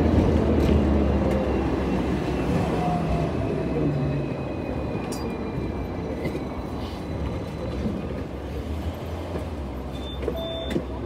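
Hong Kong double-decker tram heard from on board: a falling whine and the rumble of the wheels on the rails die away as the tram slows to a stop, leaving a steady low hum.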